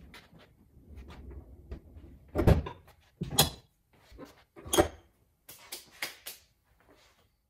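Plywood mobile table-saw cart on casters rolled over a concrete floor and knocked into place under a workbench: a low rolling rumble, then three loud wooden knocks about a second apart. Near the end come a few quicker, lighter slaps, like hands being brushed off.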